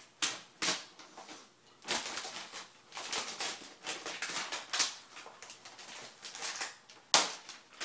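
Plastic wrap crinkling as it is pulled off a laptop, in irregular rustling crackles, with one sharp crackle about seven seconds in.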